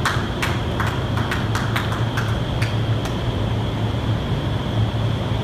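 Indoor skydiving wind tunnel running: a steady, loud roar of the airflow and fans with a low hum underneath, and a string of sharp, irregular clicks through the first half.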